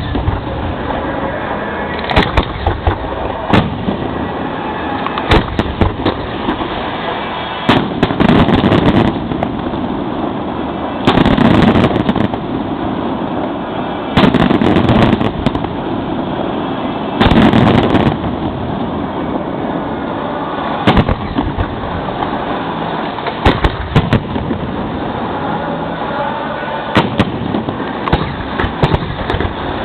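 Aerial fireworks display heard close to the launch site: sharp bangs from shells going up and bursting throughout, with four louder stretches of about a second each where the bangs come thick and fast.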